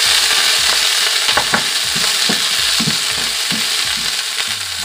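Sliced onion and garlic sizzling loudly in hot oil in a stainless-steel wok, with a spatula scraping and tapping against the pan as they are stirred.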